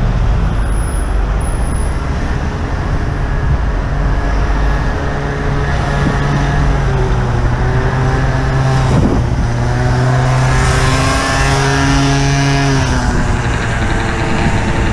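Motor traffic running close alongside a moving bicycle: a steady engine drone from cars and a van in slow traffic, rising somewhat in pitch in the second half, over a low wind rumble on the microphone.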